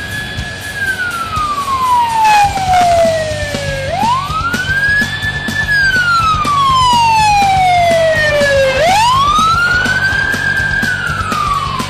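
Police car siren in its wail mode: the pitch climbs quickly, holds briefly at the top, then falls slowly, repeating about every five seconds. A steady low hum runs underneath.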